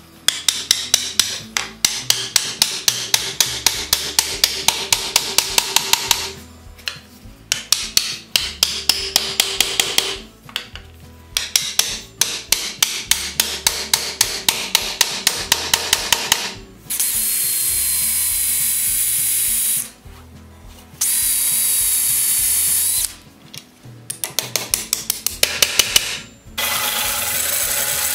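Hammer driving new wooden spokes into a wagon wheel hub: runs of rapid, even knocks several seconds long with short pauses. From about 17 s a band saw runs in stretches of a few seconds, with one more short run of taps between them.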